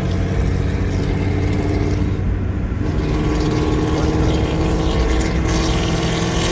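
Car engine running with road noise, a steady deep hum whose pitch steps up slightly about three seconds in.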